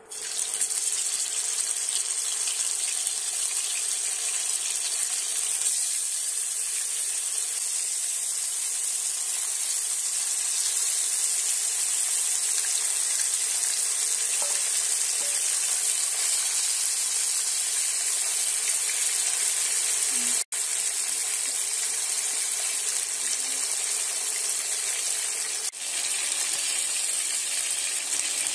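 Pieces of carp shallow-frying in hot oil, a steady sizzle. It cuts out for an instant about two-thirds of the way through.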